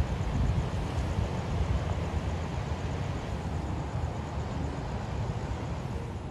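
Wind buffeting the phone's microphone with an uneven low rumble, over a steady rush of sea surf.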